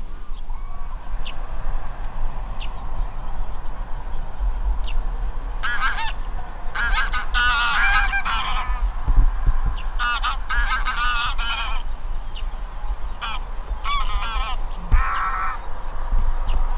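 A flock of geese honking in flight: three bouts of calls, from several birds at once, from about six seconds in.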